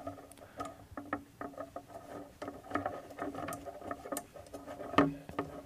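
Small irregular clicks and scratches of a thumb screw being turned by hand, threading through a nylon washer into the frame of an Electro-Voice 309A microphone suspension mount, with a sharper click about five seconds in.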